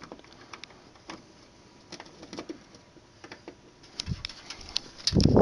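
Scattered small clicks and taps from handling the CPU socket's metal load plate and lever on the motherboard, then a loud muffled rumble near the end.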